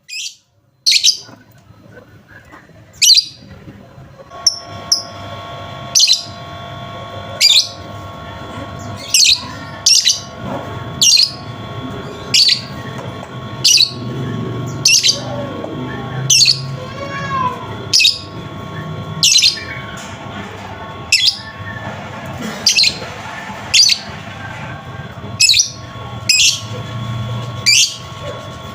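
Lovebird calls from a lure recording meant to get a silent lovebird to start calling again. Short, sharp, high-pitched calls repeat about every second and a half over a steady background of fainter chirping.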